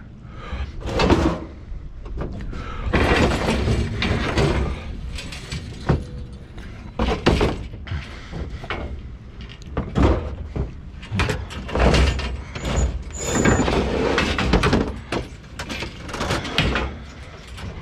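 Scrap metal being shifted around in a truck bed: irregular clanks, thuds and metal scraping, with one knock or drag after another.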